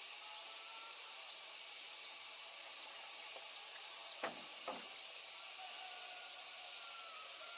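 Steady high-pitched drone of insects, with two light knocks in quick succession a little past halfway.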